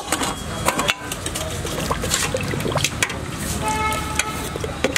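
Steel ladle stirring and scooping thin gravy in a steel pot: liquid sloshing and pouring back, with clinks of the ladle and a steel lid against the pots. A brief pitched tone sounds about three and a half seconds in.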